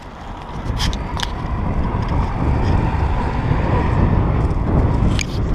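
Wind and road rumble on a bicycle-mounted action camera's microphone while riding, growing louder over the first couple of seconds and then holding steady. A few brief high clicks sound about a second in and again near the end.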